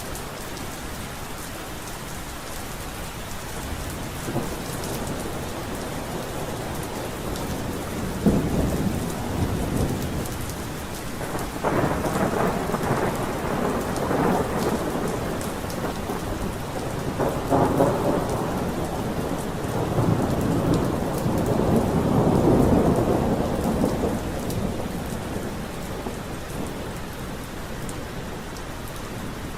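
Steady rain falling, with a long roll of thunder rumbling in about a quarter of the way in. The thunder swells several times and then fades away, leaving the rain.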